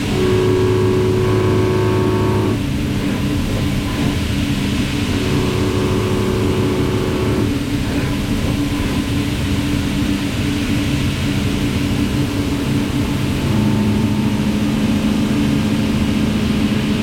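Five-axis vertical CNC machining centre running under power, a steady mechanical hum with several held tones. A higher whine comes in twice, from about half a second to two and a half seconds and again around five to seven and a half seconds, and a deeper tone strengthens near the end.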